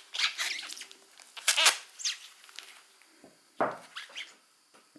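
Pink foam packaging being pulled and torn off by gloved hands: irregular rustling, scratching and squeaky rubbing, with a knock about three and a half seconds in.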